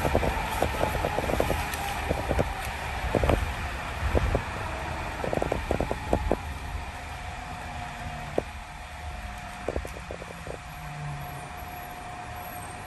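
Airport people-mover tram running, with a low rumble and repeated knocks and clatters over the guideway for the first several seconds. It then grows quieter as it slows into the station, leaving a steady whine.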